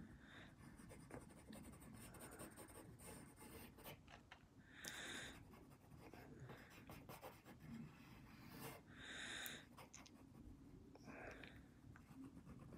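Faint scratching of a pencil sketching on paper, with two louder hisses about five and nine seconds in.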